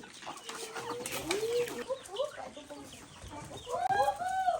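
Several chickens clucking, their short calls overlapping, with the loudest burst of clucks near the end.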